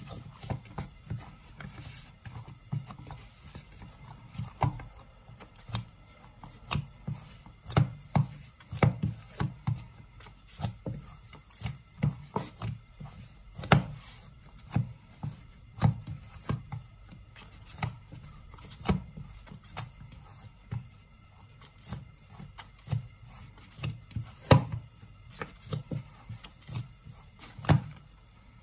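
Wheat dough for roti being kneaded by hand in a bowl: irregular soft thuds, about one every half second to a second, as fingers and knuckles press the dough against the bowl, with a few sharper knocks.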